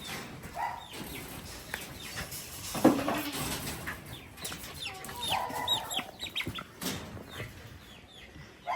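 Chickens clucking in a coop, short scattered calls with a few higher squawks in the middle. A single loud thump sounds about three seconds in, and a lighter knock near the end.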